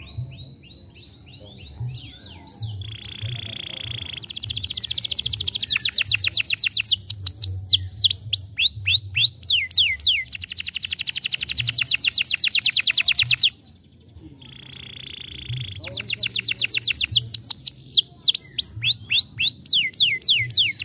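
Young canary singing: long, fast trills of rapidly repeated notes mixed with sweeping downward-slurred notes. The song breaks off for a moment about two-thirds of the way through, then starts again with a rising roll.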